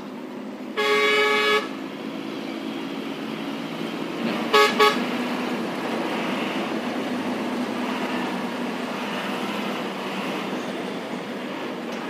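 Vehicle horn sounding in traffic: one blast of almost a second about a second in, then two quick toots around four and a half seconds in. Steady road and engine noise runs beneath.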